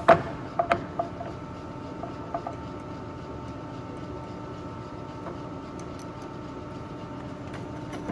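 Turnmaster gap-bed engine lathe running with its spindle turning slowly at 35 RPM: a steady hum of motor and gearing, with a few sharp clicks in the first second.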